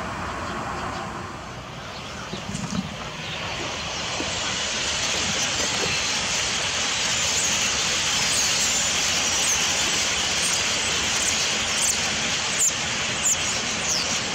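A large flock of birds calling all at once: a dense, steady chatter with many short high squeaks on top, growing fuller about four seconds in.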